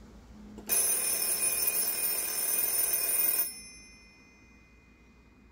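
The twin-bell ringer of a 1975 RFT Variant rotary telephone rings once during a ringer test. The ring starts under a second in, lasts about three seconds, then stops, with the bells ringing on faintly for a moment.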